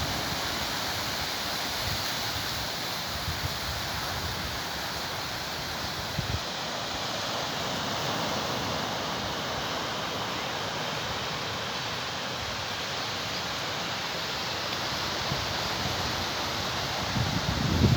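Sea surf washing steadily on the shore, with wind buffeting the microphone in low gusts that grow strongest near the end.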